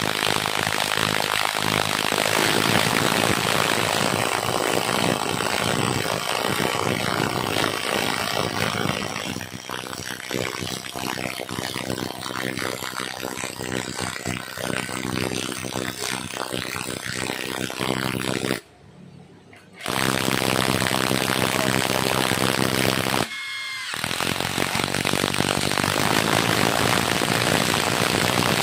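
Two cordless impact drivers, an NRT Pro and a Total, hammering as they drive long lag screws into solid wood, at times both at once. The noise cuts out briefly twice in the second half.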